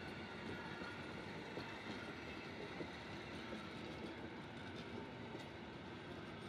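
Old wooden railway passenger coaches rolling past on the rails: a steady rolling rumble of wheels on track with a few faint ticks.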